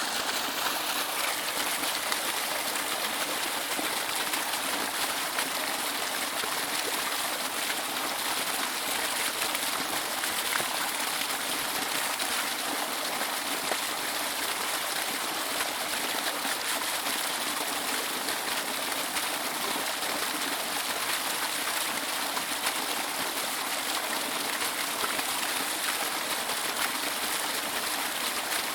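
Waterfall: a steady, unbroken rush of falling water, a bright hiss with little low rumble.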